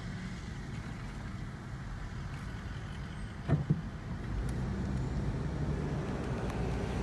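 Low, steady road and engine noise of a car heard from inside the cabin, with a short knock about three and a half seconds in and a slight rise in level soon after.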